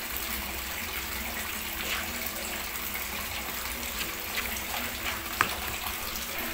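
Silicone spatula stirring a thick mashed-tofu and egg mixture in a plastic bowl: soft scrapes with a few light clicks against the bowl, over a steady hiss.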